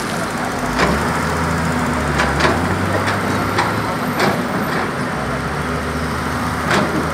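Heavy diesel trucks running and manoeuvring at low speed, a steady low engine drone with a few sharp knocks scattered through it.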